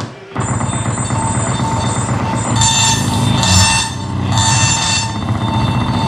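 Live electronic noise music from a laptop-and-electronics rig: a dense, steady wall of low rumble and hiss with several held high tones over it, cutting in abruptly a fraction of a second in after a brief gap.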